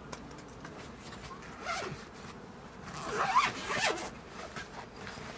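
A zipper being pulled twice: a short pull about two seconds in, then a longer, louder pull a second later.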